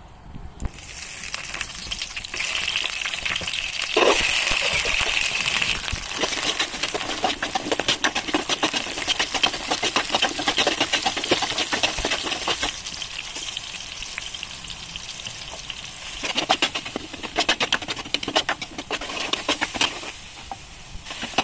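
Small onions and green chillies frying in hot oil in an aluminium pot, sizzling steadily, with the sizzle growing louder about four seconds in. A steel ladle scrapes and clicks against the pot as they are stirred.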